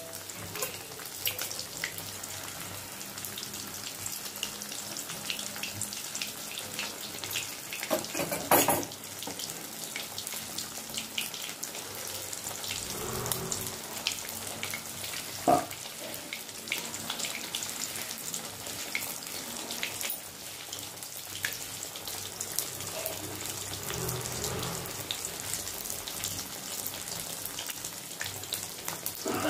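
A semolina-coated fish piece deep-frying in hot oil: steady sizzling with fine crackling. Two sharp knocks, about 8 and 15 seconds in.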